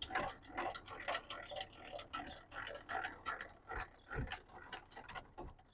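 Faint, irregular metallic clicking and ticking, several a second, from a trailer's tongue jack being hand-cranked down.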